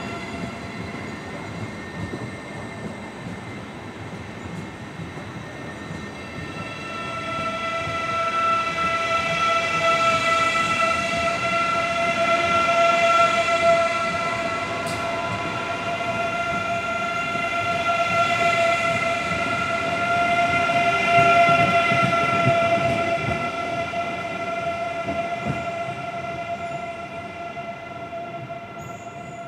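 Eurostar E320 high-speed train running past with a rumble, joined after several seconds by a steady high-pitched whine with overtones that swells twice and stays on to the end.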